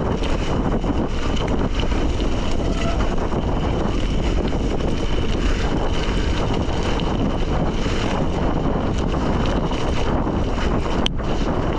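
Wind buffeting a handlebar camera's microphone over the steady noise of gravel-bike tyres rolling on a dirt and gravel road. A single sharp click near the end.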